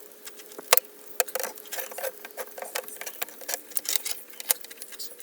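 Rapid, irregular small clicks, taps and scratches of a metal detector's coil cable being wrapped around its shaft, with a couple of sharper knocks about a second in.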